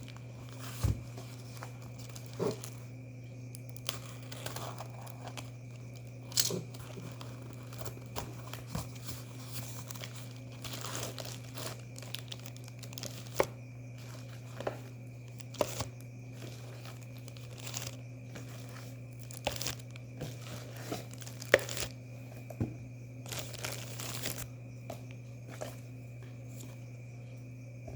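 Packaging being handled during an unboxing: irregular crinkling, tearing and rustling with scattered sharp clicks and taps, over a steady low hum.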